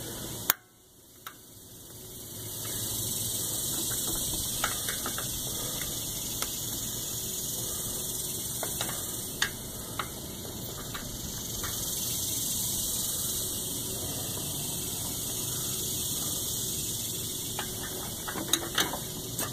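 Scattered small clicks and taps of hand tools on metal while a snap ring on a motorcycle's coolant crossover tube is worked out, over a steady hiss and hum.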